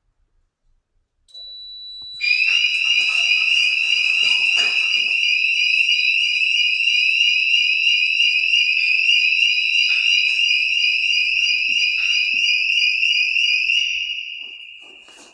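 Addressable fire alarm sounder going off under test. A quieter steady tone comes first, then a loud, shrill electronic alarm tone in fast repeating rising sweeps starts about two seconds in and fades away near the end.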